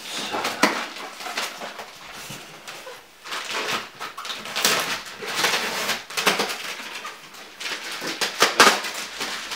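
Polystyrene foam packing and plastic film being pulled and handled around a flat-screen TV: irregular rustling and rubbing, loudest about halfway through and near the end.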